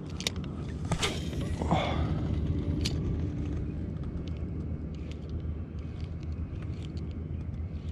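Steady low rumble of wind and handling noise on a chest-mounted action camera, with scattered light clicks from a spinning reel being handled and cranked.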